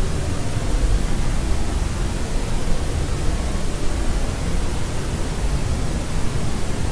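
Steady white noise for sleep: an even, unbroken hiss with most of its weight in the low end and no changes.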